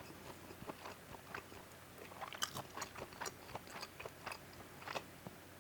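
Faint, close-miked chewing of a hot dog: a string of soft, irregular mouth clicks.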